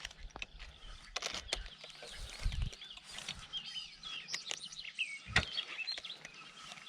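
Birds chirping with many short quick calls, thickest in the middle of the stretch, with a few sharp clicks and a low knock mixed in.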